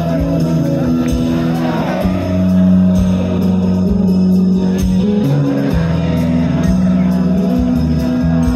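Live rock band playing through a concert sound system, with electric guitars, bass, keyboard and drums hitting steadily, and a man's voice on the microphone over the band.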